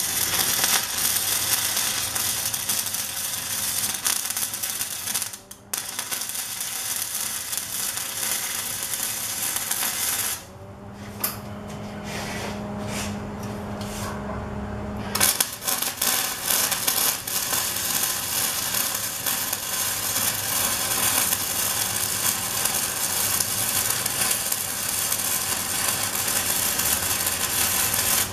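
MIG welding arc crackling as beads are laid on steel square tubing. It runs for about ten seconds with a short break around five seconds in, stops for about five seconds while a steady hum is heard, then runs again through the rest.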